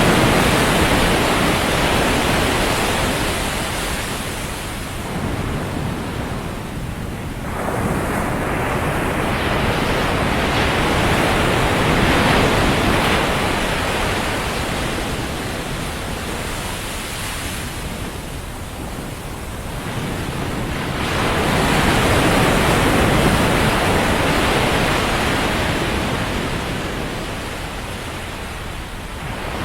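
Ocean surf breaking and washing on a sandy beach, swelling and ebbing in slow surges every several seconds, with some wind on the microphone.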